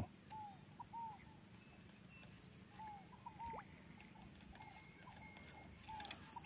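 Faint wildlife sounds from the flooded scrub: short, falling animal calls repeating irregularly, over a steady high-pitched hum with soft chirps at a regular pace.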